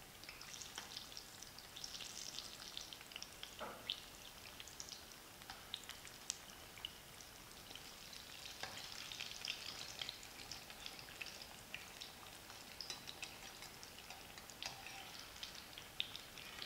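Battered cauliflower fritters (gobi pakoras) deep-frying in hot oil on medium heat: a faint, steady sizzle with fine crackles throughout. There is a single light knock about four seconds in.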